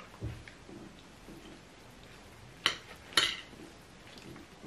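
Metal spoons clinking against plates of rice twice, a half-second apart, in an otherwise quiet stretch.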